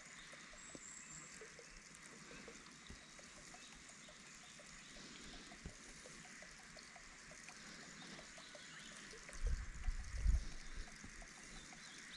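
Faint outdoor ambience with distant birds calling, and a second or so of low rumbling thumps near the end.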